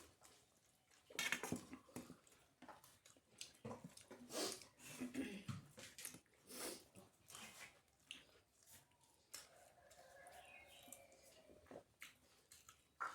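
Quiet, close-up eating sounds of a person eating roti and paratha with chickpea dal by hand: soft, irregular chewing and smacking clicks.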